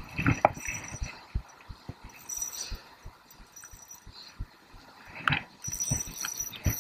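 Irregular low thumps and rustling of handling noise on a body-worn camera as the angler moves and works a spinning rod, with a few light clicks.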